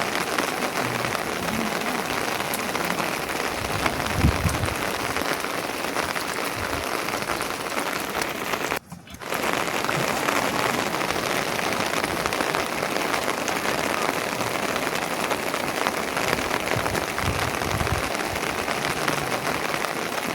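Steady rain falling on a surface, with a dull thump about four seconds in. The sound drops out suddenly for about half a second near the middle.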